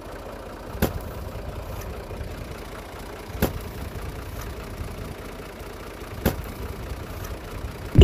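A steady low rumble with three sharp clicks, about two and a half seconds apart.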